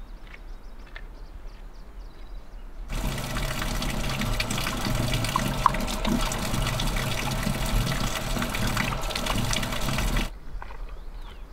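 Water pouring steadily from a stone street fountain's tap and splashing, starting suddenly about three seconds in and stopping abruptly near the end.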